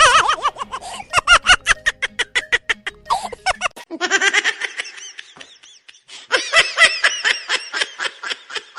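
High-pitched laughter: three long runs of quick, rapidly repeated ha-ha pulses, the first starting loud.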